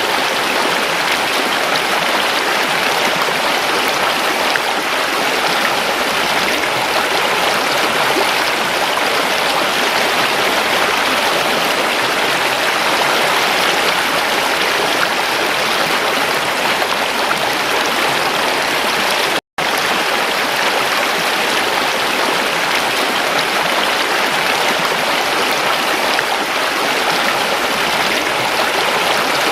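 Stream water flowing, a steady rushing and babbling. It cuts out completely for an instant about two-thirds of the way through.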